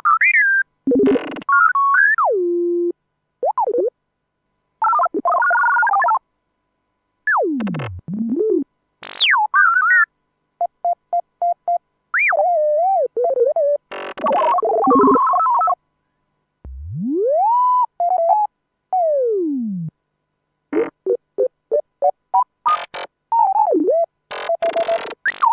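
R2-D2 droid sound effects: a string of electronic beeps, whistles and warbling chirps with quick pitch glides up and down, separated by short pauses. Partway through comes a long whistle that rises and then falls, and near the end there are runs of rapid beeps.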